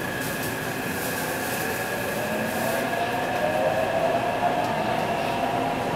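Taipei Metro C381 train running in a tunnel, heard from inside the car: steady rumble with a high steady whine, and the traction inverter and motors' whine rising in pitch about two seconds in as the train gathers speed. The train carries a software-modified inverter.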